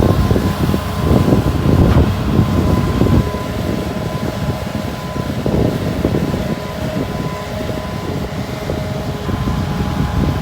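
Hydraulic excavator's diesel engine running and working under load, with irregular surges in level and a steady high tone throughout.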